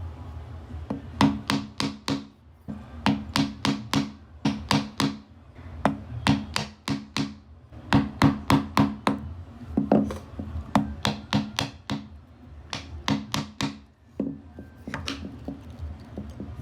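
Mallet tapping on wood in quick bursts of four to six blows, with short pauses between bursts, typical of hand-tool chisel or joinery work.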